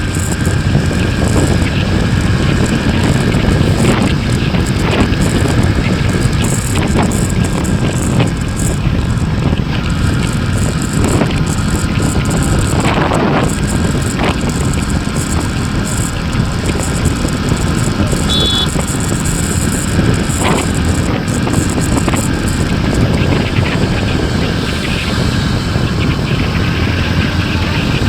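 Steady, loud road and wind noise of a bike in motion, with a few brief knocks.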